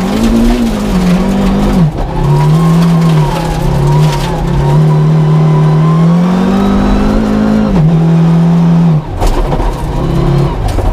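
Audi Sport quattro S1 rally car's turbocharged five-cylinder engine running hard, revs rising and falling, as the car slides on loose gravel. The engine drops off briefly about two seconds in and again near the end.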